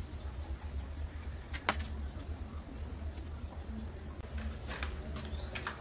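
Steady low hum, with one sharp click about a second and a half in and a few lighter clicks and taps near the end as makeup items are handled.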